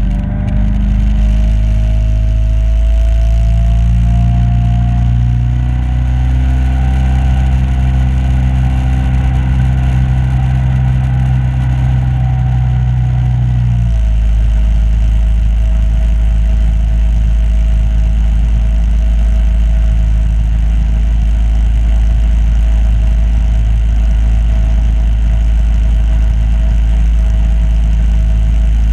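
Small boat's motor running under way, with a whine that slowly rises in pitch over the first several seconds; about halfway through the sound changes suddenly to a steadier, lower-pitched drone.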